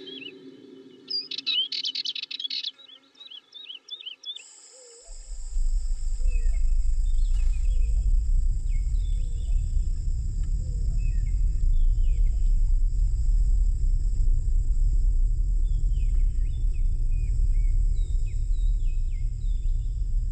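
Short, wavering bird chirps for the first few seconds. Then, about five seconds in, a deep, steady drone sets in, the loudest sound from then on, under a steady high whine and scattered short falling bird chirps.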